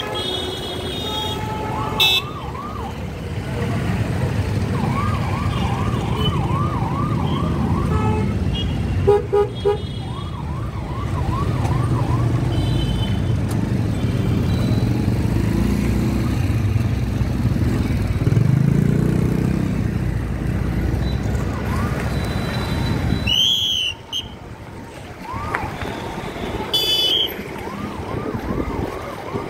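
Slow, dense street traffic of motorcycles and cars running, with an electronic siren-style horn yelping in several quick runs of rising-and-falling chirps, about four a second, and a few short horn toots.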